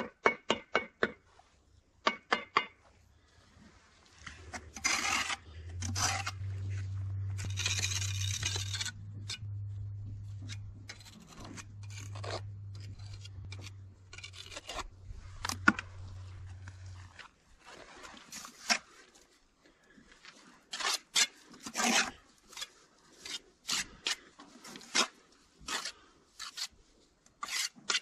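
A steel mason's hand tool scraping mortar into and along a joint against a cultured stone sill cap: many short, rough scrapes, coming quicker near the end. A low steady hum runs underneath from about four seconds in until about seventeen seconds in.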